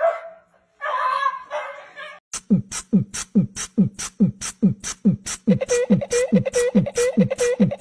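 A brief noisy burst about a second in, then a rhythmic beat of deep thumps that drop in pitch, each with a sharp hiss on top, about four a second. A steady higher tone joins about halfway through the beat.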